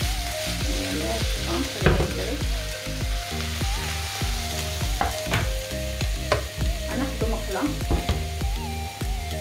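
Chicken, minced meat, peppers and onions sizzling in a frying pan, with a spatula stirring and scraping through the filling and clicking against the pan again and again.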